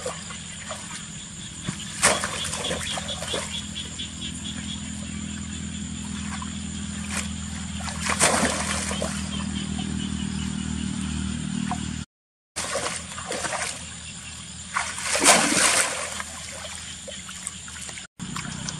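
Water sloshing and splashing, with three louder splashes, over a low steady hum during the first part.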